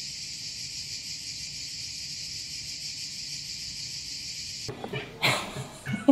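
Steady chorus of cicadas, a dense high buzz that cuts off suddenly about five seconds in. A few short knocks and noises from a room follow.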